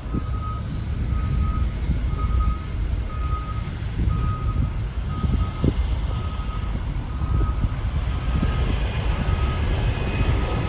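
A vehicle's reversing alarm beeping steadily, about once a second with short even tones, over the low rumble of road traffic.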